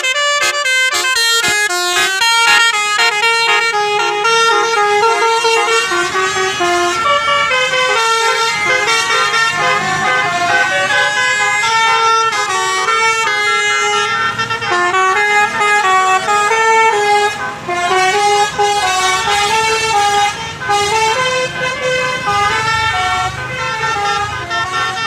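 A basuri musical bus horn playing a melody, several horn tones sounding together and stepping from note to note, with a low rumble underneath.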